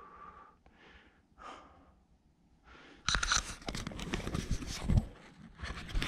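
A few soft, heavy breaths from a climber. From about three seconds in, much louder rubbing, scraping and knocking of the camera being handled right against the microphone.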